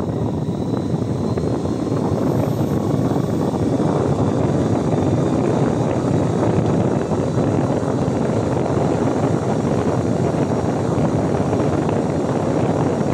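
GOOJODOQ handheld high-speed turbo fan running, a loud steady rush of air with motor hum, as its speed is stepped up toward full power. The rush grows a little louder over the first few seconds, then holds steady.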